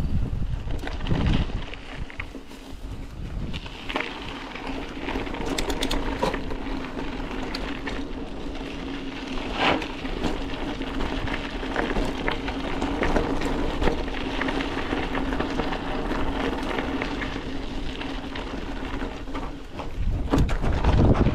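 Bicycle riding over a loose gravel track: tyres crunching on stones and the bike rattling over the bumps, with a steady low hum through the middle. Wind buffets the microphone at the start and again near the end.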